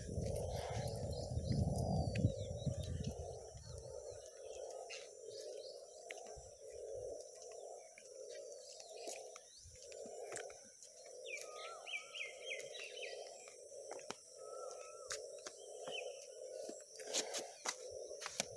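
Outdoor ambience with birds chirping a few times past the middle, over a steady low pulsing hum. Rustling handling noise in the first few seconds and scattered light clicks as the phone is carried on foot.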